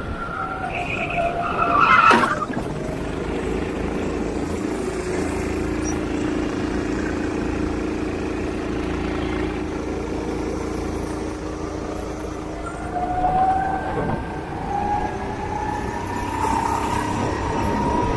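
Go-kart engine running at speed, its pitch holding steady through the middle and rising again several times toward the end. A sharp knock about two seconds in is the loudest moment.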